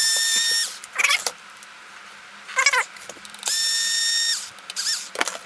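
Electric power screwdriver backing out screws in two short runs, each a steady high whine under a second long, one at the start and one about three and a half seconds in. Short squeaky chirps come between the two runs.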